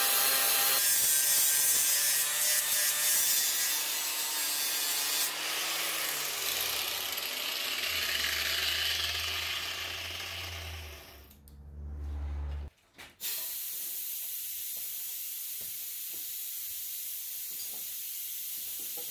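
Handheld angle grinder grinding down welds on a wood stove's metal body: a loud, steady rasp with the motor's whine. About five seconds in it comes off the metal and the motor winds down in pitch, leaving a low hum that cuts off suddenly near the middle, followed by quieter steady background noise.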